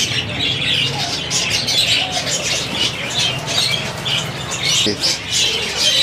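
A flock of caged small parrots, budgerigars among them, chirping and chattering all at once in a dense, continuous chorus, with some wing flapping.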